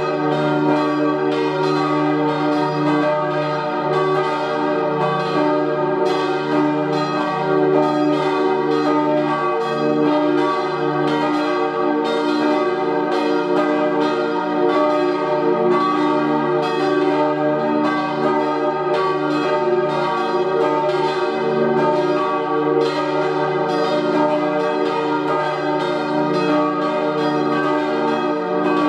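Swinging church bells from a four-bell ring cast by Rüetschi in 1888, striking over and over in a continuous, overlapping peal with a steady low hum beneath.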